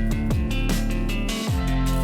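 Background music with a beat and deep drum hits.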